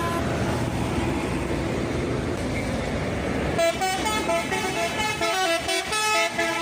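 Bus engine and road noise, then about three and a half seconds in a telolet horn plays a fast, jumpy melody of short pitched notes.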